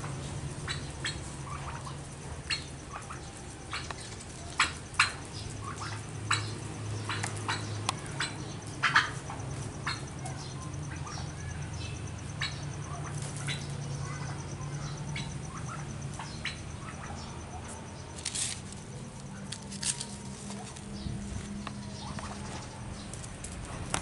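Domestic turkeys moving about and displaying on gravel: scattered sharp clicks and taps from feet, pecks and rustling feathers, with wing flapping, over a low steady hum.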